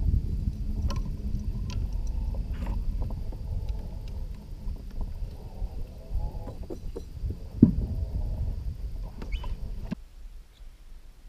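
Water splashing and sloshing around a landing net at a boat's side, with scattered clicks and knocks of tackle and a single sharp knock about two-thirds through, over a low rumble of wind on the microphone. It drops off abruptly near the end.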